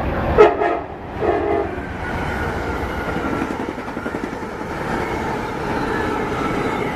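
Amtrak passenger train's air horn giving a small salute: two short blasts in the first two seconds, the first the louder. The train then runs past with a steady rumble and wheel clatter on the rails.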